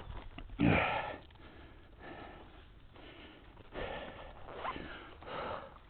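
A man's breathing and sniffing close to the microphone: several noisy breaths a second or so apart, the loudest under a second in.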